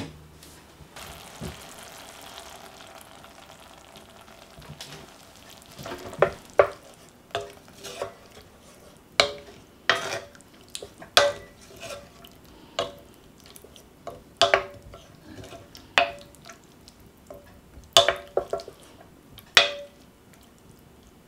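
Wooden spoon stirring a thick mushroom cream sauce in a metal pan over a faint sizzle. The spoon knocks against the pan about once a second, each knock ringing briefly.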